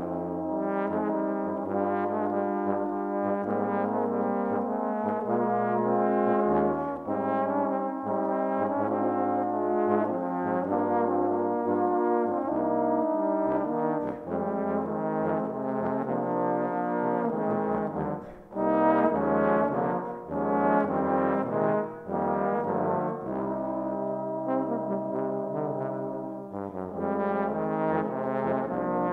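A four-part trombone ensemble of tenor and bass trombones, multitrack-recorded by one player, playing full brass chords with moving lines. About two thirds of the way through there is a brief break, then a run of short accented chords.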